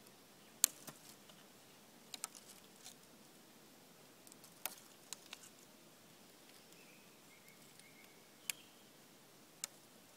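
Thin dry twigs snapping in the hands, about ten sharp cracks at uneven intervals, the loudest about half a second in.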